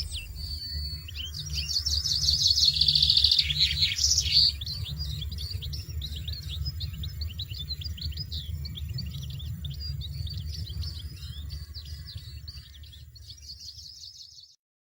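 European goldfinches calling in a hedge: a loud, buzzy trill of begging calls from the fledglings early on, then a stream of rapid, twittering chirps that fades away and stops shortly before the end. A low, pulsing music bed runs underneath.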